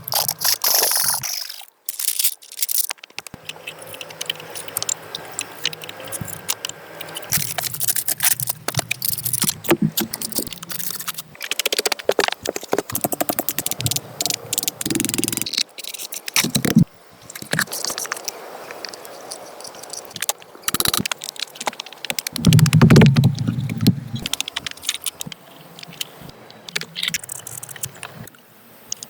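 A run of scraping, knocking and crackling work sounds, many short sharp clicks and knocks, broken by abrupt cuts; the loudest stretch, a dense low rumbling scrape, comes a little after two-thirds of the way through.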